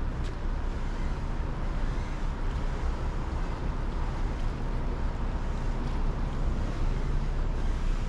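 Wind buffeting the microphone over a steady low rumble of boat engines on the waterway.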